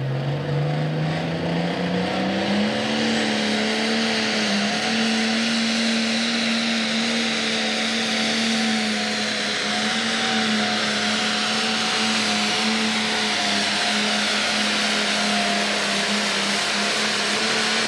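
Turbocharged diesel engine of a Pro Stock pulling tractor at full throttle under load as it pulls the sled. It revs up over the first few seconds, then holds at a steady high pitch.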